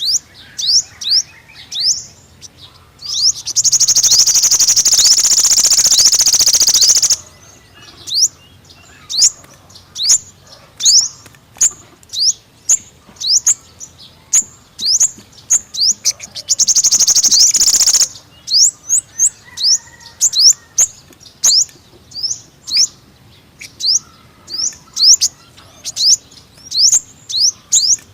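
Sunbird calling: a run of sharp, high chirps, about two or three a second. The run is broken twice by a loud, rapid trill, a long one about three seconds in and a shorter one around sixteen seconds in.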